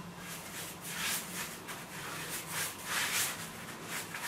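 Paintbrush swishing back and forth as varnish is brushed onto bare pine wood, in repeated short strokes about two or three a second.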